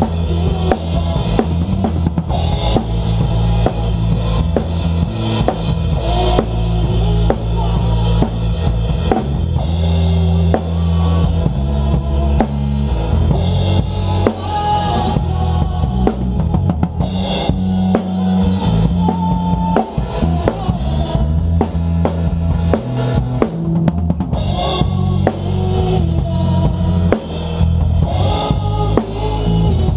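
A live worship band playing, heard from right at the drum kit: the drums and cymbals are loudest, with dense, regular hits over steady low bass notes.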